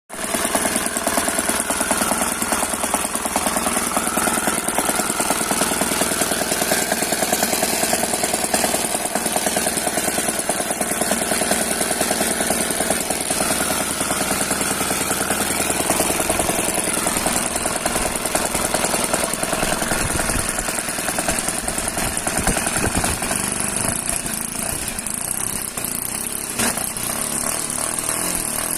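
O.S. FS-72 single-cylinder four-stroke glow model-aircraft engine running at a steady speed, easing off slightly in the last few seconds.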